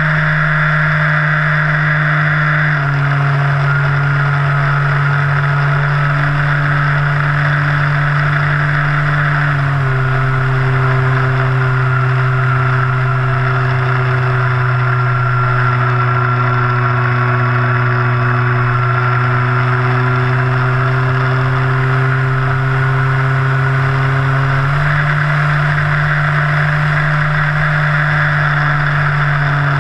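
Electric motor and propeller of a radio-controlled plane, close to the microphone: a steady buzzing drone that steps down in pitch twice as the throttle is eased back, then steps back up about five seconds before the end.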